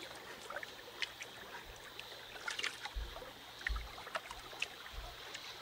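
Faint water sloshing and trickling in a wooden gold pan being swirled and washed to separate black sand, with small scattered splashes and drips and a few low bumps.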